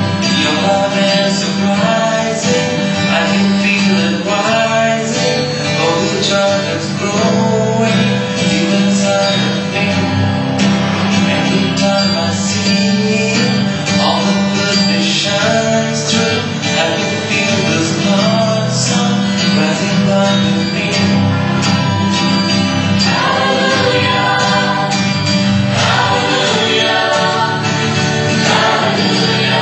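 Mixed choir of men and women singing a worship song together.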